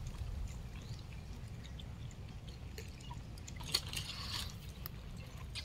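Low steady rumble with a short clatter a little over three and a half seconds in, as papayas are tipped out of a black plastic crate onto bare ground.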